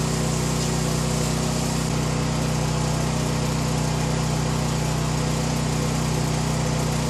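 Champion 7000/9000-watt dual-fuel portable generator running steadily under electrical load, a loud, even engine hum. A new tone joins the hum about two seconds in.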